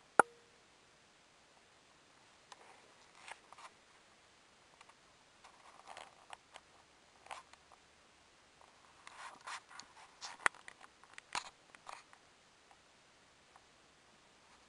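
A sharp click just after the start with a brief ring after it, then scattered light clicks and scrapes, most of them a little past the middle.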